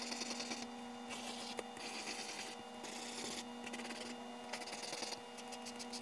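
Pencil scratching across sketchbook paper in long drawn strokes broken by short pauses, shifting to a run of quick short back-and-forth strokes near the end, with a steady faint hum underneath.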